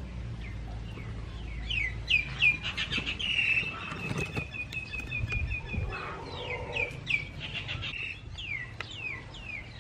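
Small birds chirping: a string of quick downward-sliding chirps and rapid trills, with a high steady note held for a few seconds through the middle.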